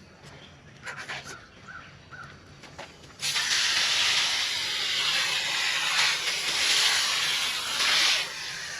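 Garden hose nozzle on its gentle shower setting spraying water onto a heat pump's outdoor condenser coil, the hiss starting suddenly about three seconds in. Before it, a few faint clicks.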